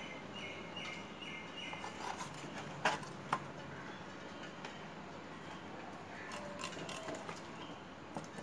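A small bird chirps a quick series of short notes near the start, over steady outdoor background noise. Two sharp clicks come about three seconds in, the knife cutting through the catfish's fin.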